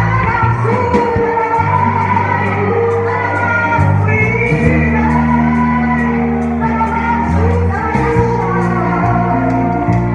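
Gospel worship music: singing over a band with sustained low bass or keyboard notes.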